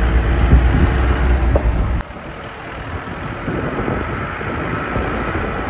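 A moving car's running noise with wind buffeting the microphone. About two seconds in it drops suddenly to a quieter, steady rush.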